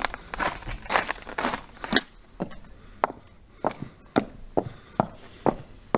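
Footsteps on cobblestones: a gritty scuffing at first, then sharp, evenly paced steps about two a second.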